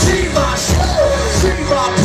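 A live band's amplified music played loud over a club PA, recorded from inside the crowd: a sung melody over heavy bass and a steady drumbeat.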